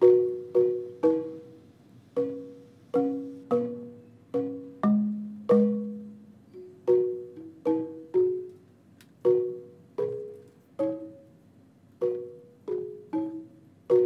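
Background music: a melody of short plucked notes in the manner of pizzicato strings, about two a second, each dying away quickly.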